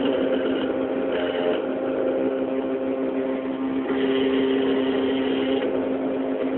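CNC machine running with a steady hum, and a higher whine that comes in briefly about a second in and again for about a second and a half from around four seconds.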